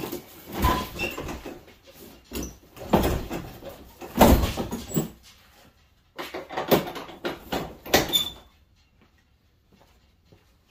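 A large metal shop door being shut and latched: a series of sudden metal bangs, clanks and scrapes, the loudest about four seconds in. It stops at about eight and a half seconds.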